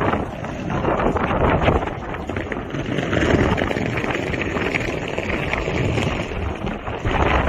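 Wind buffeting a phone's microphone: a loud, rough, uneven rumble that cuts off suddenly at the end.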